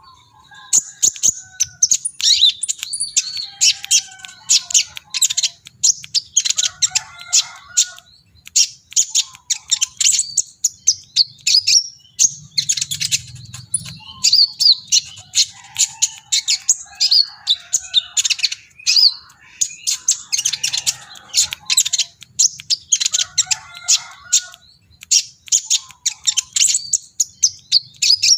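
A kolibri ninja sunbird singing hard, in dense runs of rapid, sharp, high-pitched chirps and twitters broken by short pauses.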